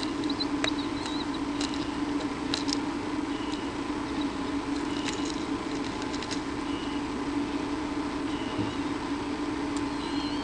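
Nest-camera microphone with a steady electrical hum, scattered sharp taps and scratches in the first half, and short high peeps repeating every second or two.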